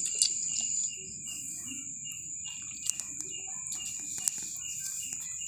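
Night insects calling: a steady high buzz with a chirping pulse repeating about three times a second, with a few sharp clicks, the loudest just after the start.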